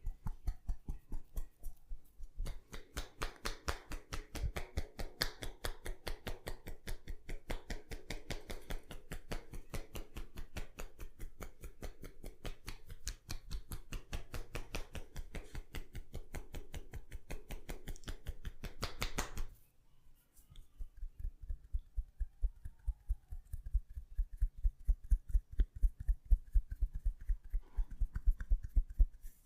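Rapid, rhythmic hand tapping of a head massage, about five crisp strikes a second. After a short pause about two-thirds in, the strikes turn into duller, deeper thumps that grow louder.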